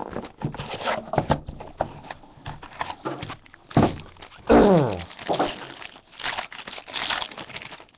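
Hands opening a cardboard trading-card box and tearing open the plastic-wrapped card pack inside, with crinkling of the wrapper and a couple of falling squeaks about four seconds in.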